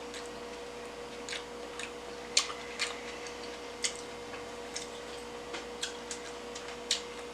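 Sporadic light clicks from eating sushi, irregular and about one or two a second, over a steady faint hum.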